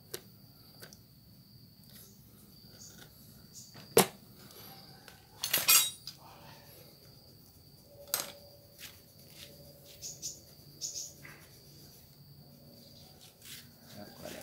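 Handling noise around a Maruyama BCS32M brush cutter with its engine not running: scattered clicks and knocks, the loudest a sharp knock about four seconds in, followed about a second and a half later by a short rattle.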